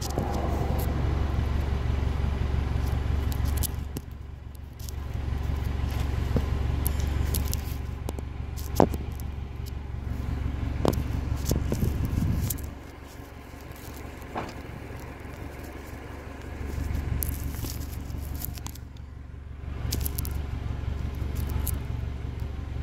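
1998 Honda Accord exhaust with a muffler delete, idling: a low, steady drone that swells and fades in loudness every few seconds. A few sharp clicks sound over it.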